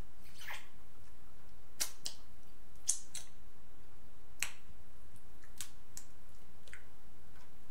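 Crab-leg shells cracking and snapping as they are broken apart by hand, close to the microphone: a string of about ten sharp, irregular clicks over several seconds.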